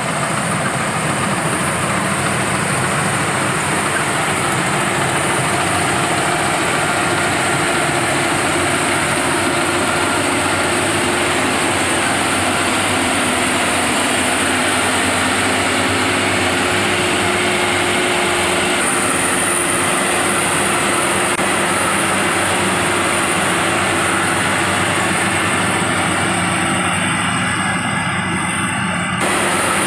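Rice harvesting machine's engine running steadily under load, with a continuous mechanical drone and hiss.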